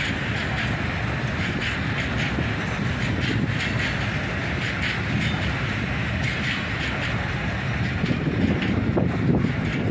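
Freight train of open coal wagons rolling steadily across a railway bridge: a continuous rumble of wheels on rails with many faint ticks mixed in.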